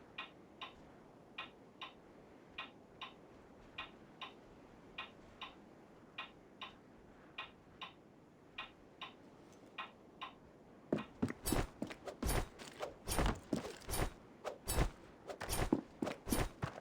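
Soft paired ticks repeating steadily, about one pair a second, then, about two-thirds of the way through, loud, rapid, irregular knocking and thudding, like knocks behind a door.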